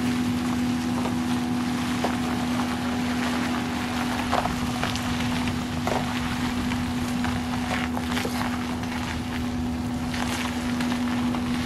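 Pickup truck engine running steadily at low speed while the truck tows a boat trailer, with wind on the microphone. A few faint knocks come about four and six seconds in.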